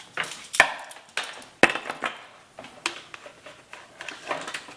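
Dropper-post cable and housing being pushed and jammed into a mountain bike frame: a run of irregular sharp clicks and knocks, the loudest about half a second and about one and a half seconds in.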